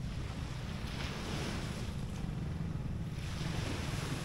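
Surf washing onto the beach, one wave's rush swelling about a second in and falling away about three seconds in, over a steady rumble of wind on the microphone.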